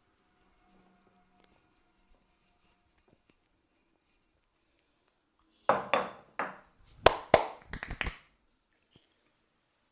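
Hands striking during a head and shoulder massage: a quick run of about nine sharp slaps and claps over two and a half seconds, starting a little past halfway through.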